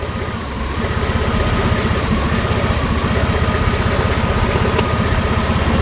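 GM 4.3L Vortec V6 idling roughly with its EGR valve held wide open, letting too much exhaust into the intake. It is the lumpy, uneven idle of an EGR stuck open. The engine pulses steadily and grows slightly louder about a second in.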